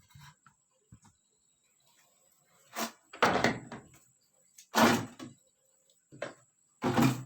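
A series of about six loud clunks and knocks, like a lid or door being handled, starting about three seconds in and coming roughly a second apart.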